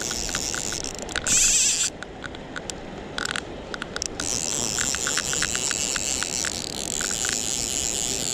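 Fly reel's click-and-pawl ratchet ticking in short irregular runs as line goes on and off the reel while a fish is played, over the steady rush of river water. About a second in there is a brief louder rush, after which the water sound drops for a couple of seconds.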